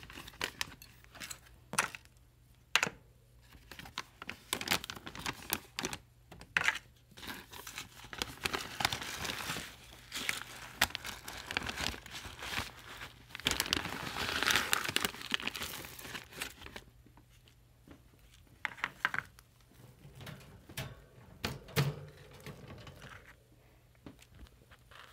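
Plastic bag of rabbit food crinkling and rustling in irregular bursts as it is handled and food is taken out, with scattered clicks and knocks; the rustling is heaviest through the middle.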